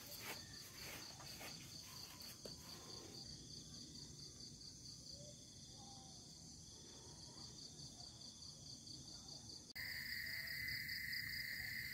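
Insects chirping in a steady, evenly pulsing chorus. Near the end the sound changes abruptly to a louder, continuous insect drone.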